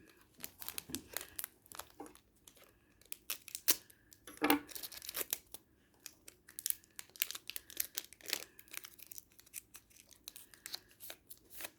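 Pokémon trading card packs being torn open by hand, with the wrappers crinkling and rustling in irregular bursts throughout.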